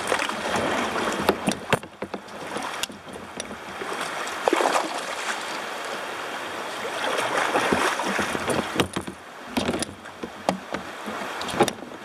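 Kayak paddling through moving river water: a steady rush of water with paddle splashes, and scattered sharp knocks and clicks throughout.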